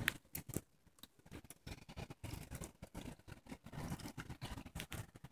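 Light rain pattering in scattered irregular taps, with a low rumble of wind and handling on the phone's microphone. One sharp click comes right at the start, and the taps thin out for about a second after it.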